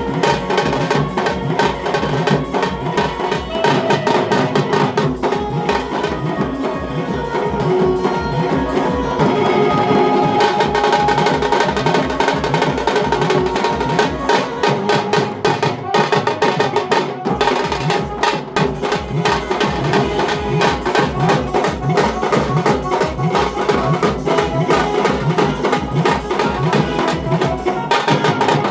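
Tasha band playing: tasha drums beaten rapidly with sticks in a dense rhythm over a steady bass beat, with a melody running through it.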